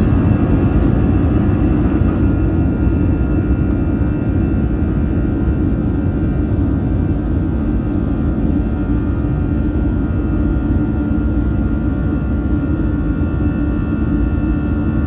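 Airbus A321's jet engines running steadily at taxi thrust, heard inside the cabin as a constant low hum with a faint steady whine over it.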